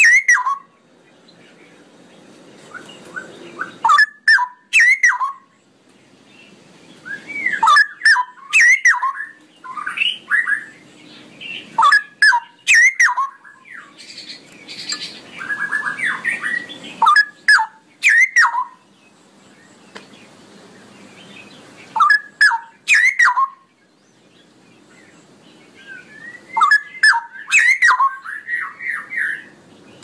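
Straw-headed bulbul (cucak rowo) singing loud, bubbling song phrases full of quick rising and falling notes, one burst every few seconds with short pauses between.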